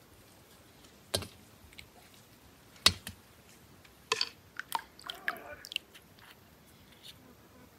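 Knife cutting into ripe plums: a few sharp, wet clicks and squishes, the loudest about three seconds in, then a quick run of them with water sloshing as a hand reaches into a basin of plums soaking in water.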